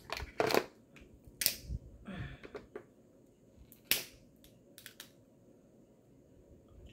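Cooked crab leg shells being cracked and snapped apart by hand: several sharp cracks, a group in the first second and a half and more about four and five seconds in.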